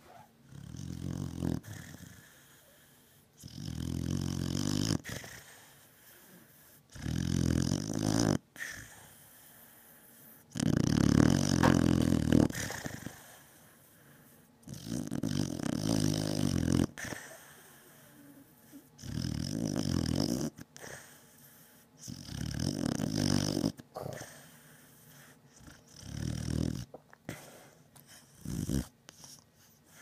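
Beagle snoring loudly in deep sleep: a low, buzzy snore on each breath, each lasting one to two seconds, coming about every three to four seconds with quiet gaps between.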